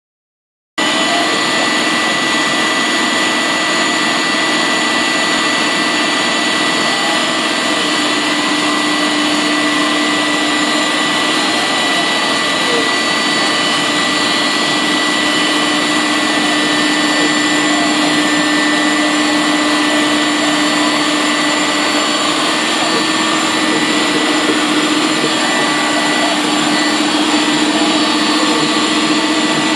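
MultiCam 1000 Series CNC router spindle cutting foam, with the dust-extraction vacuum on the head running. It is a steady high whine over a rushing noise, starting abruptly about a second in.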